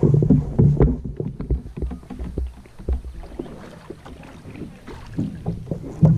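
Plastic Vibe sit-on-top kayak hull being dragged over grass and a concrete launch ramp, heard through the camera mounted on the kayak as a rough scraping rumble with many small knocks. It eases off after about two seconds as the hull reaches the wet ramp. A sudden loud bump near the end comes as someone steps aboard.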